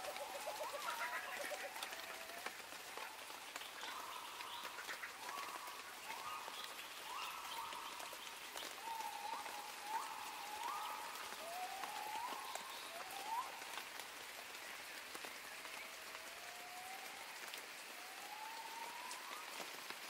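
Steady rain with a bird calling over it: a string of short pitched calls, some level and some rising, about one a second, giving way to slower, longer rising notes in the second half.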